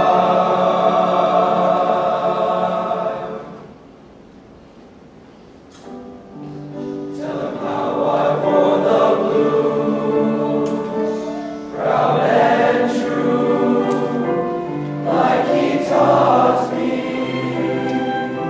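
Male choir singing: a held chord fades out about three seconds in, then after a short pause the voices come back in softly and build, swelling louder several times.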